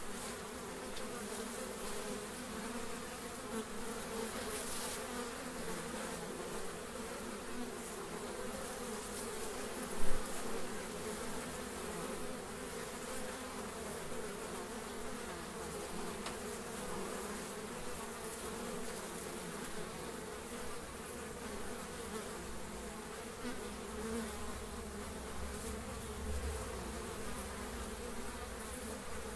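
Several flies buzzing steadily, a continuous droning hum. A brief low thump about ten seconds in is the loudest moment.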